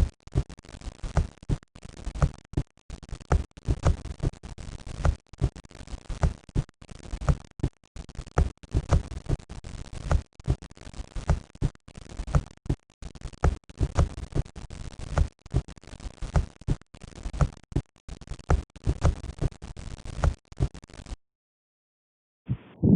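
Heart sounds heard through a stethoscope: a steady, regular run of heartbeats with a hiss between the beats. The recording stops about two seconds before the end, and after a short silence a louder, muffled low sound begins.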